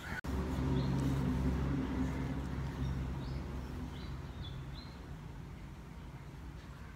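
A low, steady engine hum that grows fainter over the first five seconds, with a few short bird chirps.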